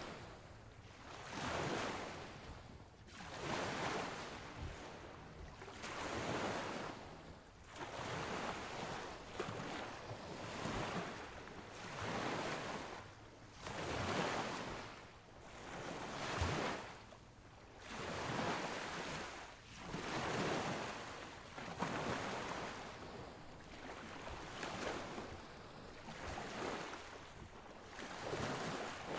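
A rushing, surf-like noise that swells and fades in regular surges about every two to two and a half seconds, like waves washing in.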